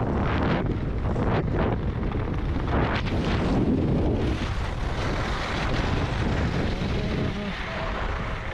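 Wind buffeting the microphone with a heavy low rumble, gusting harder in the first half and easing after about four seconds.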